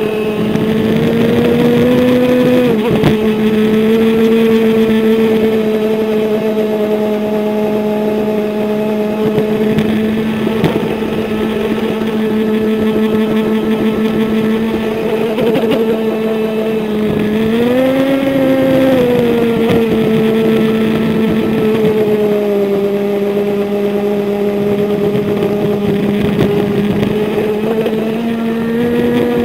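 Brushless motor of a HobbyKing Small Bolt twin-hull RC boat running at speed on a 3S LiPo, heard close from a camera strapped on board: a steady motor whine over the rush of water and spray. The pitch rises and falls briefly a few times, most clearly about eighteen seconds in.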